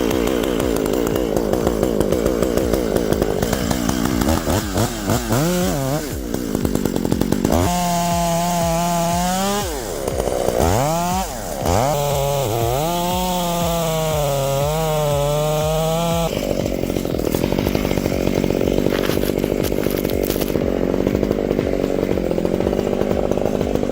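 Chainsaw engine running, revved up and down, then held at a steady high pitch for several seconds in the middle with a couple of brief drops.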